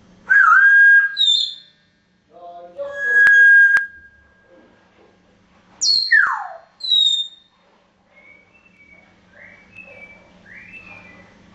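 African grey parrot whistling: loud held whistle notes, then a high whistle that falls in a long downward swoop, followed by a run of softer short chirping notes.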